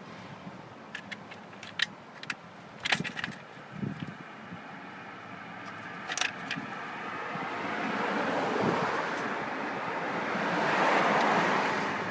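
Scattered small clicks and clatter of parts and tools being handled, then a passing vehicle whose noise swells over several seconds and fades near the end.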